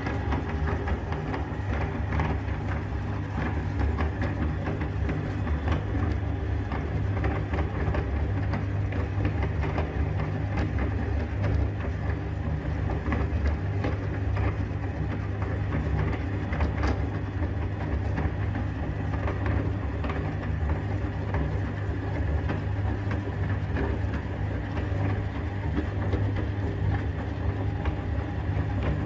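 Electric meat grinder running steadily, its motor humming, with many small sharp clicks and cracks of hard lollipop candy being crushed in it.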